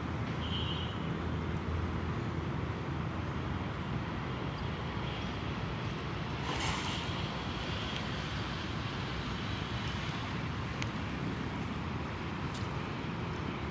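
Steady outdoor background noise with a low rumble, and a short, louder rush about halfway through.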